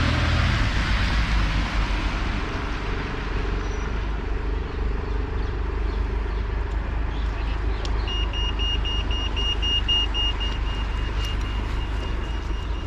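A passing car fades away over a steady low rumble of traffic. About two-thirds of the way through, a high electronic beeping starts as fast pulses, about five a second, that then run together into a steady tone.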